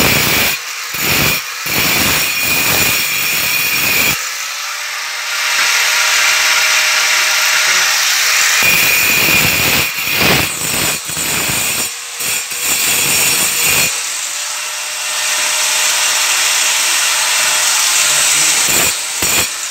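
Angle grinder with a diamond blade cutting into marble in repeated passes. The rasping, grinding noise comes and goes over the motor's steady high whine, which runs on alone for a few seconds between passes (about 4 to 8 s in and again 14 to 19 s in) before the blade bites again briefly near the end.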